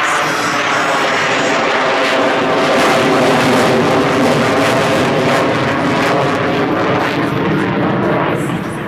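An F/A-18 Super Hornet's two jet engines, loud and continuous as the jet flies its demonstration. The sound swells about three seconds in and eases off near the end.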